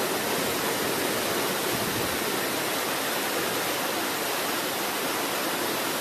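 Waterfall pouring down a rock face onto stone and a shallow pool at close range: a steady, even rush of water with no breaks.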